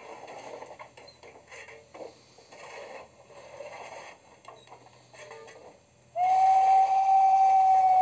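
ESU LokSound sound decoder in an LGB G-scale RhB G 3/4 steam locomotive model, playing slow steam chuffs through its loudspeaker. About six seconds in, a long steady steam whistle starts; it is much louder than the chuffs.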